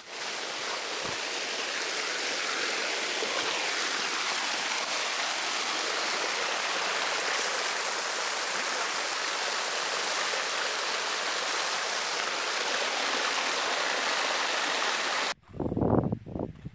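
Forest stream running over rocks, a steady rush of water that cuts off suddenly near the end, followed by a few short thumps.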